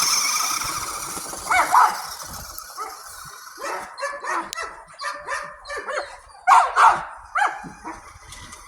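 Dog barking and yipping, a dozen or so short barks at an uneven pace, loudest about two-thirds of the way in.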